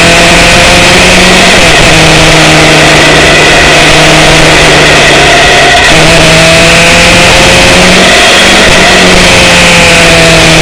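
Motorcycle engine running on the move, its note holding nearly steady but shifting in pitch a few times. Heavy wind rush on the microphone runs under it.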